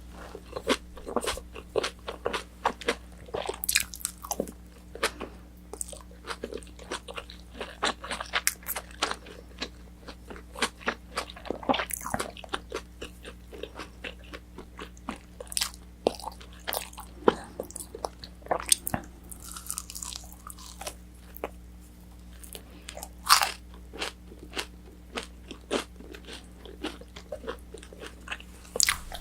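Close-miked chewing with many crisp, crackling crunches of battered, fried orange chicken being bitten and chewed. A faint steady hum sits underneath.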